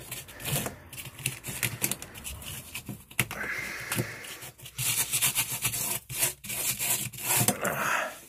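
Irregular scraping and rubbing strokes on the stripped metal floor of a Lada 2101, broken by sharp clicks and knocks, as dirt and loose flakes are scraped off.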